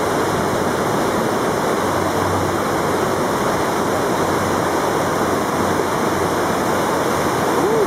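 River water pouring over a concrete dam and churning into white water over the rocks below: a steady, full rushing.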